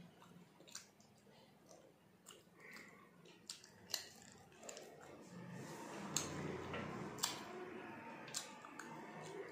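Close-up eating sounds: chewing and wet mouth noises with scattered sharp clicks, growing denser and louder about halfway through.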